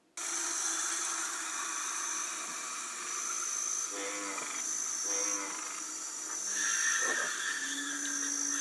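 A steady insect-like chirring hiss with a high whistling tone that comes and goes about once a second, and a few short pitched calls near the middle.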